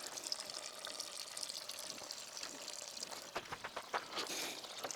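Coolant trickling steadily from the tractor radiator's drain valve into a drain pan, faint, with a few light knocks about three and a half seconds in.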